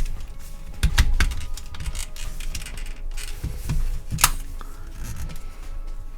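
Plastic parts of a Transformers Twincast action figure being handled and clicked into place during transformation: a few sharp clicks about a second in and another near four seconds, with rubbing and fiddling between.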